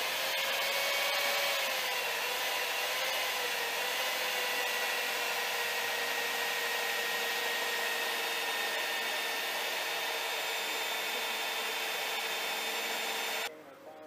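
Electric power drill running continuously under load, drilling a hole, with a steady motor whine that sags slightly in pitch as it bites. It stops suddenly near the end.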